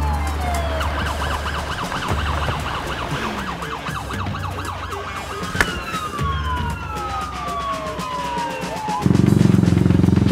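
Comic whistle sound effects over a music track: long falling whistle glides and a fast warbling whistle, with one sharp click in the middle. About nine seconds in, a louder low, steady sound of a motorbike engine starting and running comes in.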